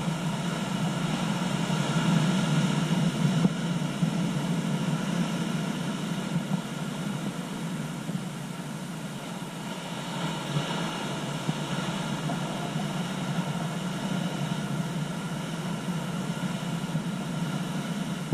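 Ocean surf breaking over a rocky shore: a steady wash of waves that swells about two seconds in and again around ten seconds in.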